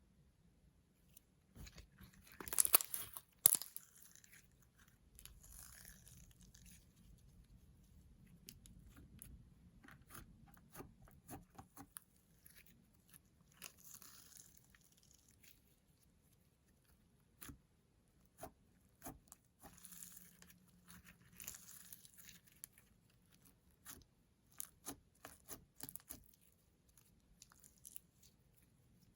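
Slime being mixed and squished: sticky clicks, small pops and crackles in scattered clusters, with a louder crunchy burst a few seconds in.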